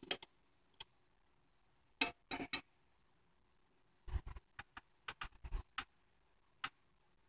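Wrench working on a lawnmower blade bolt: an irregular scatter of metal clicks, clinks and knocks, bunched about two seconds in and again from about four to six seconds in.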